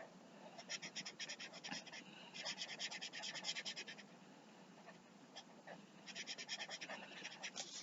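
Faint scratching of a large felt-tip marker scribbling back and forth on paper, colouring in, in three runs of quick strokes with short pauses between.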